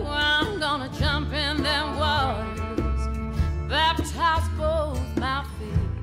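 Song with a singer holding long, wavering notes over steady low instrumental accompaniment.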